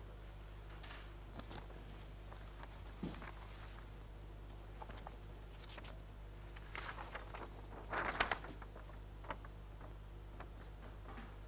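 Quiet room tone with a steady low hum, broken by scattered light rustles and small taps. The loudest cluster of rustling comes about eight seconds in.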